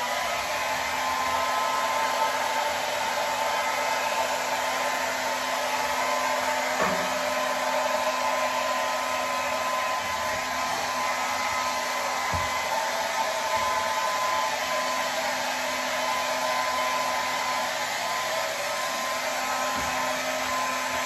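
Handheld hair dryer running steadily, a constant rush of air with a steady whine, as it blows wet acrylic paint across a poured surface.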